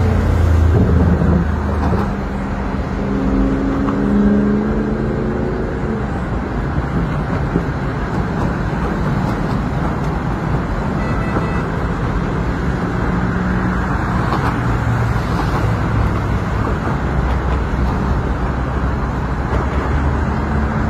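Steady road traffic noise, with an engine hum standing out over the first six seconds.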